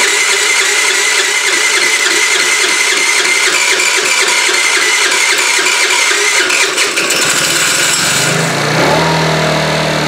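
TaoTao scooter engine running fast and loud, then dropping to a steady idle about eight seconds in.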